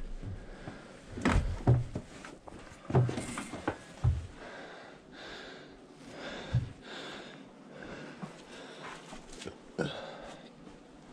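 A person moving about a small room with a chest-mounted camera: a few dull thumps and knocks, the loudest a little over a second in and around three seconds in, over light rustling and breathing close to the microphone.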